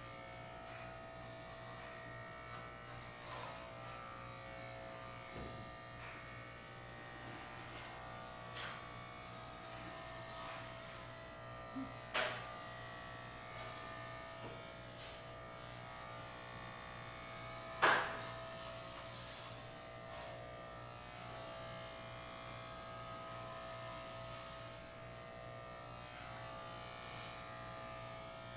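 Electric hair clippers buzzing steadily as they shave a head down. A few sharp clicks break through, the loudest about eighteen seconds in.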